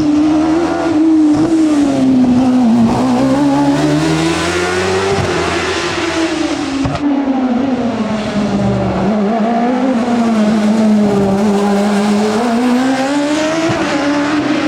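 Racing car engine at full load on a hillclimb run, its pitch rising and falling repeatedly as the driver accelerates, shifts and lifts for corners.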